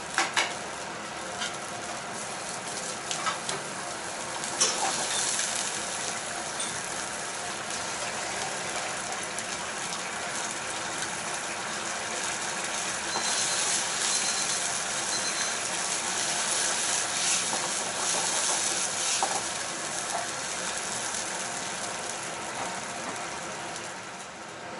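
Tomato sauce simmering in a frying pan over a gas flame, a steady sizzling hiss with fine spitting and bubbling. A few sharp clicks in the first five seconds: metal tongs knocking against the pan.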